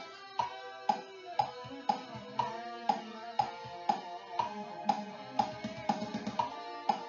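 Electric guitar played along with a backing track, with drum hits landing about twice a second in a steady beat.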